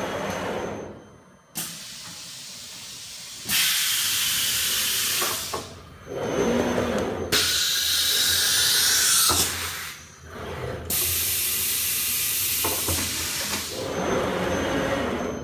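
Compressed air hissing in several long blasts of two to three seconds each, with short gaps between them, from a CNC router's pneumatic automatic tool changer as it picks up tool number one for a touch-off.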